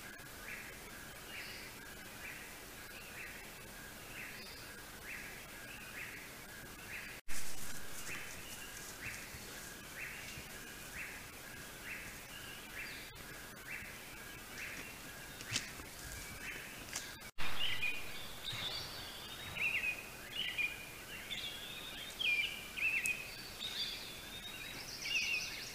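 Birds calling in the dawn chorus: a short two-pitched note repeated about once or twice a second, joined about two-thirds through by a busier run of varied song phrases. The sound breaks off suddenly twice and comes back louder each time.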